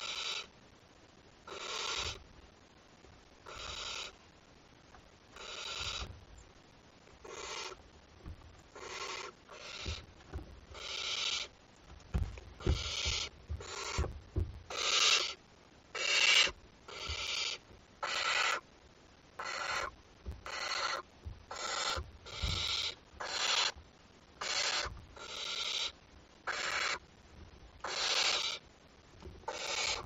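Barn owl chick giving its rasping, hissing begging call, the 'snore', over and over. Each call lasts under a second, about one every two seconds at first and then coming faster, about one a second, with a few soft low thumps in between.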